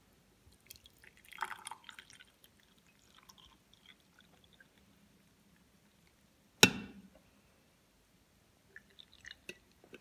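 Faint pouring and dripping as hot coffee is poured from a glass coffee-maker carafe into ceramic mugs, with one sharp knock about two-thirds of the way through.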